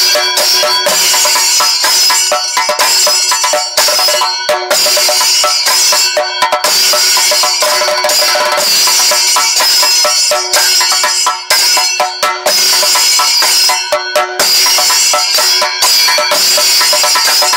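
Thayambaka: a group of chenda drums beaten with sticks in dense, fast rolls, with a steady high metallic ringing from ilathalam hand cymbals over the drumming. The playing is loud and unbroken, with a few brief drops between phrases.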